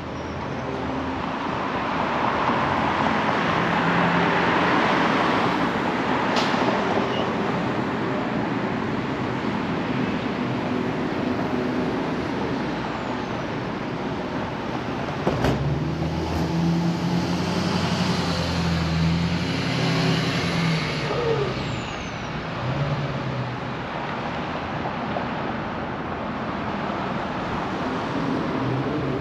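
City street traffic: cars passing steadily, with a heavier engine running low for several seconds from about halfway through.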